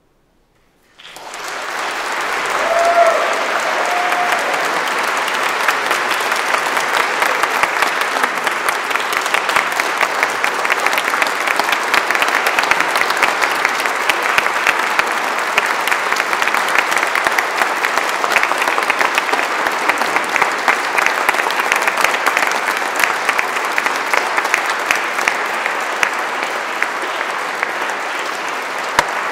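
A church congregation applauding: the clapping starts suddenly about a second in and continues steadily and densely, with one voice calling out briefly about three seconds in.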